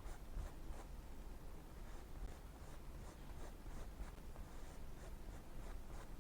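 Filbert brush dabbing and dragging oil paint onto a stretched canvas in short, faint scratchy strokes, about two a second.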